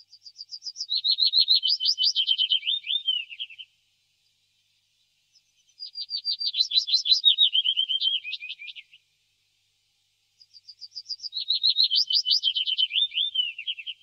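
Willow warbler singing: three songs, each a run of quick sweet notes about three seconds long that steps down in pitch from start to finish.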